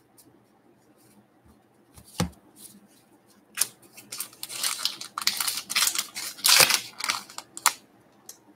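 A Topps Heritage baseball card pack being torn open, its wrapper crinkling and tearing in a run of crackles for about four seconds from about three and a half seconds in. A single knock comes about two seconds in.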